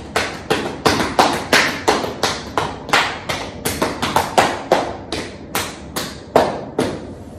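Both hands patting and tapping on the thigh and hip in a steady rhythm, about three pats a second, stopping shortly before the end.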